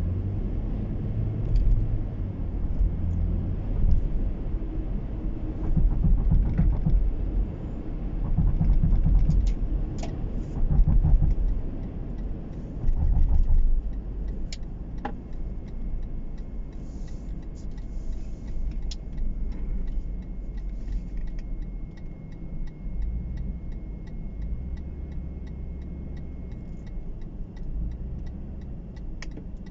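Car engine and tyre road noise heard from inside the cabin, a steady low rumble that surges louder in the first half at highway speed, then eases as the car slows toward a roundabout.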